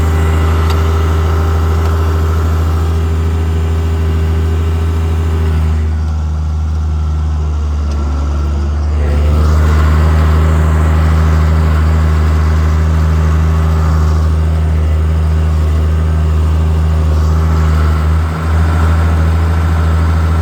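International Harvester 856 tractor engine running steadily. It eases off for a few seconds about six seconds in, then rises in pitch and comes back louder.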